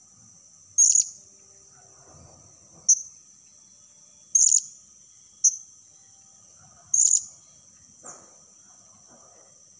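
Blue-crowned hanging parrot (serindit) lure call: sharp, high-pitched chirps repeated about every second and a half, alternating single short calls with slightly longer ones, over a steady high insect drone.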